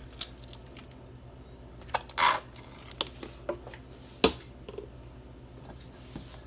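Kitchen handling sounds at a stainless steel mixing bowl: a few scattered light clicks and knocks as a ketchup bottle and a metal spoon are handled, the sharpest about four seconds in, with one short hiss about two seconds in, over a steady low hum.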